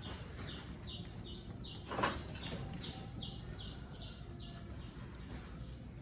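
A small bird chirping over and over in an even rhythm, about two to three short high chirps a second, with one sharp knock about two seconds in.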